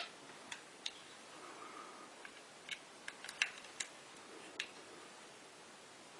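Light, irregular clicks and taps, about a dozen, from small parts being handled during a model locomotive repair. The loudest click comes about three and a half seconds in.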